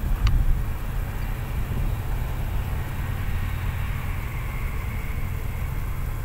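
Wind buffeting the microphone in a steady low rumble, with a faint distant vehicle hum that swells from about three to five seconds in.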